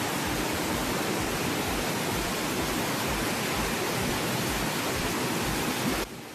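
Steady rush of churning water in a jetted pool, cutting off abruptly near the end.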